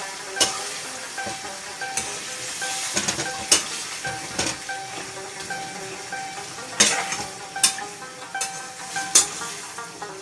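Lamb karahi sizzling in a frying pan as a metal spatula stirs it, with sharp scrapes and knocks of the spatula against the pan every second or so.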